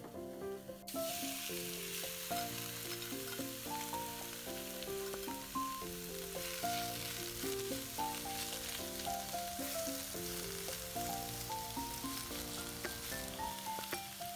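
Marinated beef strips hit a hot stainless-steel skillet about a second in and start sizzling, a steady frying hiss, as they are stirred with a spatula.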